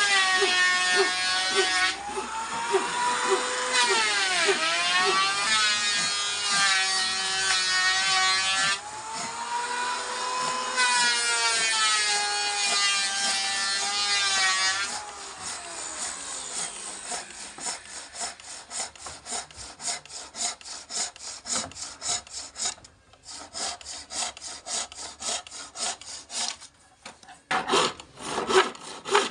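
A power tool's motor whines at the start, its pitch sagging and recovering as it bites into the wood, and stops about fifteen seconds in. Then comes a quick, regular back-and-forth stroking of a hand tool on the wood of a cricket bat, several strokes a second.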